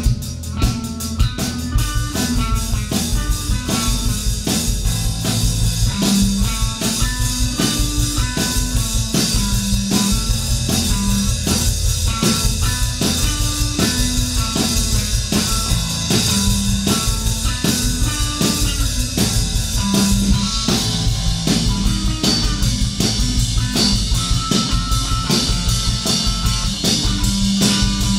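Rock jam for electric bass and drum kit: a Rickenbacker-style bass plays fast, busy runs of notes over dense drumming. The cymbals grow brighter about two-thirds of the way through.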